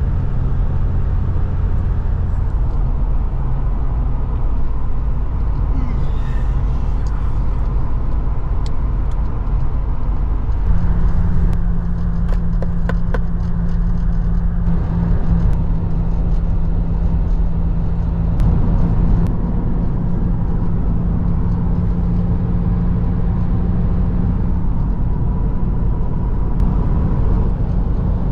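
Ford Sierra XR4x4 heard from inside the cabin while cruising at about 70 mph, the engine at around 2,500 rpm: a steady engine drone with road noise. The drone's note changes about eleven seconds in.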